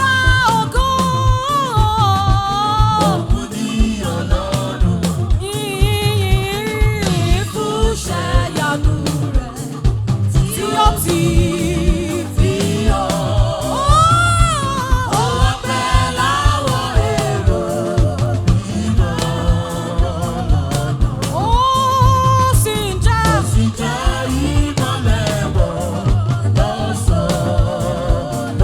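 Gospel praise singing with a live band: a lead voice with vibrato over a steady drum beat.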